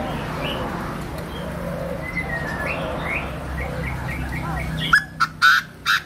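Chinese francolin crowing: about five seconds in, a quick series of four or five loud, harsh notes, over softer scattered chirping of small birds and a low steady hum.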